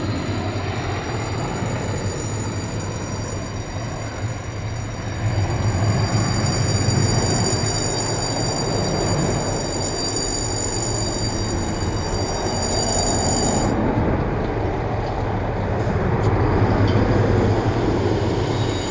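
General Dynamics F-16 Fighting Falcon and Boeing AH-64 Apache helicopter flying past together: a steady jet roar mixed with the helicopter's rotor, with a high whine that cuts off suddenly about two-thirds of the way through.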